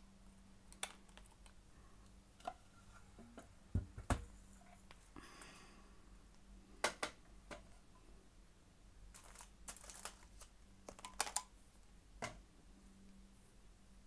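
Faint, irregular clicks and light knocks of small objects being handled, a dozen or so, with a brief rustle about five seconds in, over a low steady hum.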